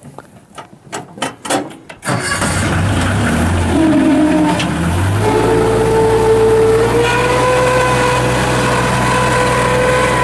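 Kubota diesel engine of a 1986 Bobcat 643 skid steer loader starting. A few knocks come first, then the engine fires about two seconds in, rises in pitch over the next few seconds and settles to a steady run.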